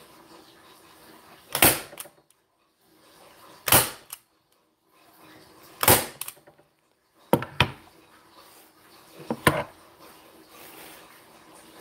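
Hand-held manual staple gun firing staples through an upholstery cover into an armrest: six sharp snaps about two seconds apart, two of them in quick succession past the middle.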